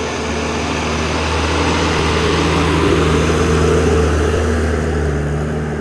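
A vehicle's engine running steadily while on the move: a continuous low hum with road and wind hiss over it.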